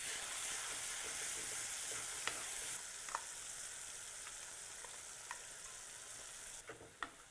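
Wet ground masala paste (made with salt water) hitting hot sesame oil in a clay kadai and sizzling, strong at first and gradually dying down, then dropping away near the end. A few light clicks of a wooden spatula against the pot come through the sizzle: the masala being sautéed in the tempering oil.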